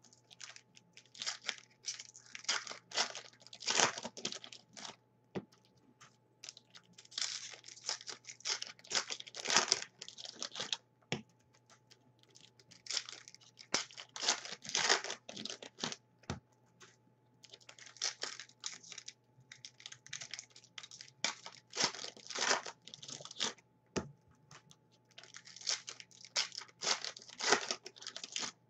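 Topps Chrome football card pack wrappers being torn open and crinkled, with cards handled, in irregular bursts of rustling and short pauses.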